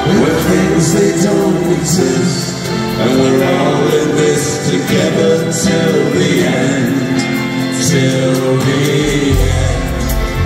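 Live band performance of a slow song: a male lead vocal sings long, sliding lines with a gospel-style backing choir over piano chords. A deep bass comes in near the end.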